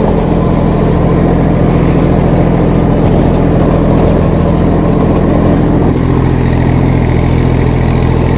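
Massey Ferguson 1035 DI tractor's three-cylinder diesel engine running steadily under load at about 1700–1800 RPM while it drives a 6-foot Shaktiman rotavator tilling soil through the PTO shaft.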